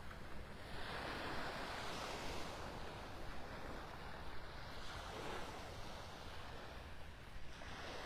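Small, gentle waves washing onto a sandy beach, the surf hiss swelling and fading several times, over a low steady rumble.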